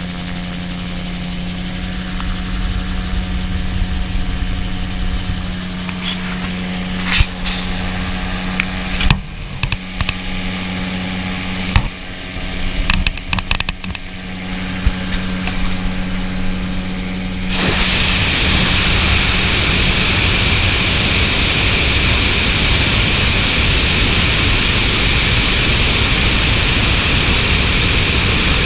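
Gyroplane engine and propeller running with a steady low hum, with a run of sharp knocks and bumps through the middle. About two-thirds through, the sound switches abruptly to a louder, even rush of wind and engine noise.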